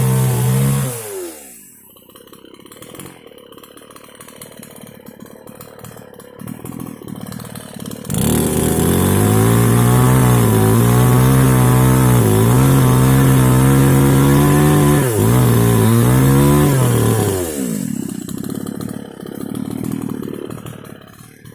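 Two-stroke mini chainsaw running at full throttle, then slowing to a low idle after about a second. Around eight seconds in it is revved hard again and held there for about nine seconds, its pitch dipping briefly a few times, before it drops back to idle.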